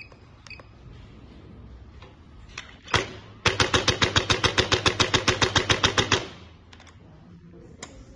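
Electric chiropractic adjustor gun firing its impulse head: one single thump, then a fast even run of strikes, about nine a second, for nearly three seconds, stopping abruptly.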